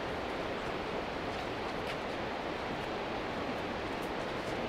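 Steady rushing roar of a river in full flood, an even wash of water noise that does not change.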